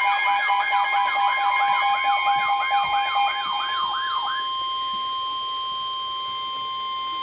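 Emergency alert signal: an electronic siren wail sweeping up and down about three times a second over steady high-pitched alert tones. The sweeping fades out about four seconds in, leaving the steady tones sounding on.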